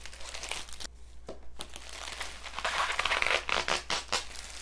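Bubble wrap and plastic packaging crinkling as they are handled and pulled away, with a brief lull about a second in and the busiest rustling about three seconds in.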